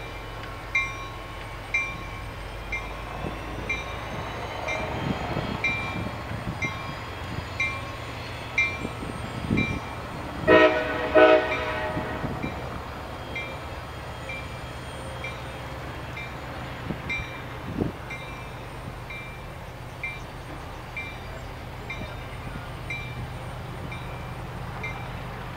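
Distant diesel freight locomotive horn sounding two short blasts about ten seconds in, with a faint bell dinging about once a second.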